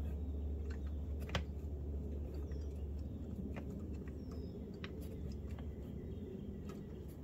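Scattered small clicks and knocks of the oil dipstick and cap being handled at the generator's oil fill port, the sharpest about a second and a half in, over a low steady background hum, with a few faint bird chirps.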